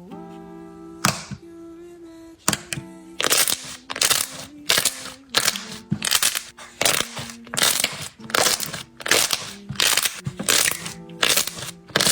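Slime being played with, giving loud sharp crackling pops about twice a second from about three seconds in, over soft background music.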